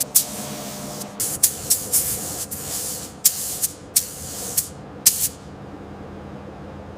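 Compressed air hissing from an air tool in about a dozen short, sharp bursts over the first five seconds, then a fainter steady hiss. A low steady hum runs underneath.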